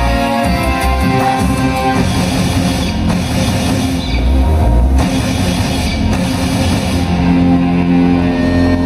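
Loud rock music with a drum kit and guitar.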